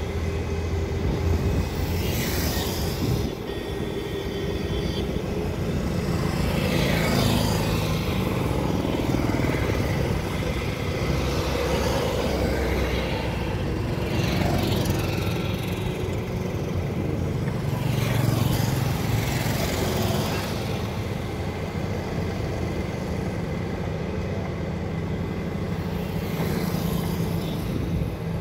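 Road traffic: cars, a van and motorcycles passing one after another, about five swells as they go by, over the steady low drone of a heavy diesel tipper truck's engine as it manoeuvres.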